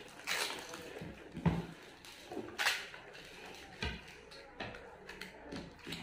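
People eating puchka (panipuri): mouth noises of biting and chewing the filled shells, with two short hissing breaths and a few soft knocks and clicks from plates and hands on the table.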